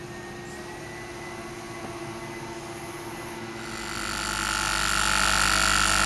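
Small brass model steam engine running on steam from a toy boiler: a steady hum, and about four seconds in it grows much louder, with a high steady whine and hiss as the engine picks up speed on a full head of steam.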